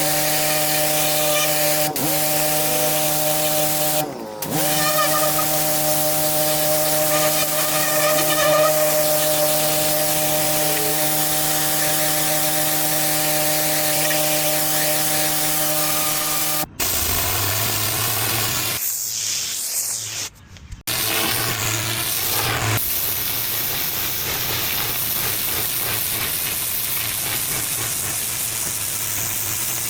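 Pressure washer running: its motor holds a steady tone under the hiss of the high-pressure water jet. About 17 seconds in, the sound changes abruptly to a rougher spray hiss with a lower hum, broken by brief dropouts.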